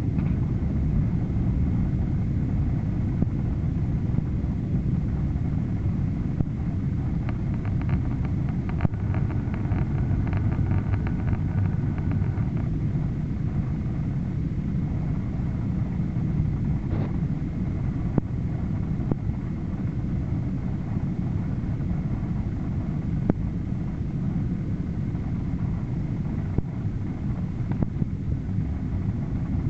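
Steady low rumble of an airliner cabin during the descent to land: engine and airflow noise heard from a window seat.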